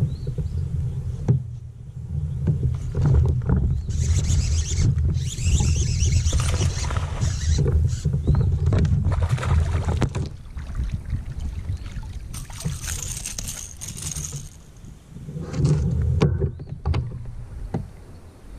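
Kayak under way on the water: a steady low rumble, with two longer spells of splashing, hissing water about four seconds in and again about twelve seconds in.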